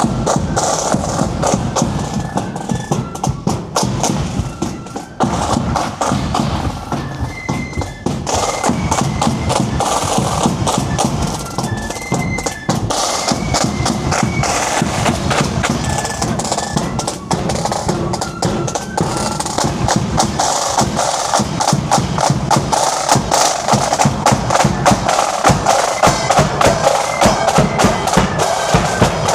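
Marching band playing a tune, with snare and bass drums beating steadily under a reedy melody.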